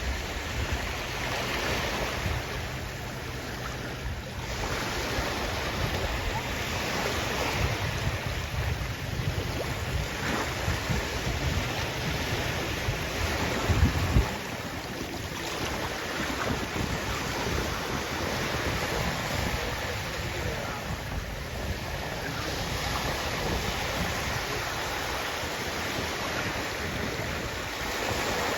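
Sea waves washing onto the shore, the surf swelling and easing every few seconds, with wind rumbling on the microphone; the wind rumble peaks about halfway through and then falls away.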